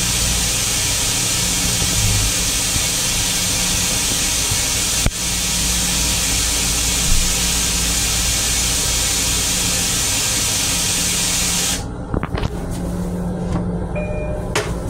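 Steady rushing-air hiss with a low hum inside a railcar restroom, with one sharp click about five seconds in. The hiss cuts off abruptly about twelve seconds in, leaving a quieter rumble with a few clicks.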